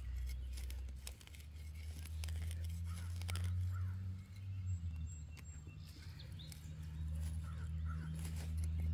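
Hands digging into dry, cloddy soil, with scattered scratches and small clicks of earth being broken up and moved, over a steady low hum. A few faint bird chirps come through, one about two and a half seconds in and a couple near the end.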